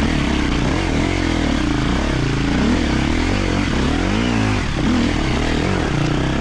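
Husqvarna FE250 single-cylinder four-stroke enduro motorcycle engine, its revs rising and falling over and over as the throttle is worked while riding off-road.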